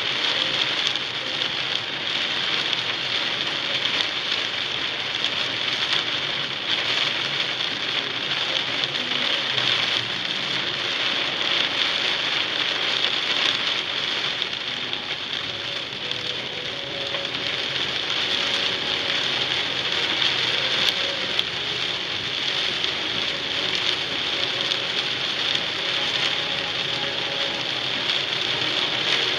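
Heavy rain falling on a moving car, heard from inside the cabin: a dense, steady hiss.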